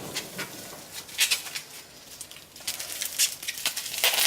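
Irregular rustling and clicking of plastic packaging and containers being handled and unpacked.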